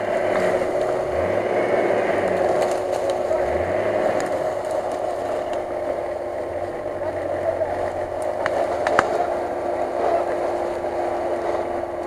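Off-road Nissan Patrol's engine working under load as the 4x4 crawls over a steep slope, revving in a few short rises in the first few seconds and then running steadily. A couple of sharp cracks come a little past the middle.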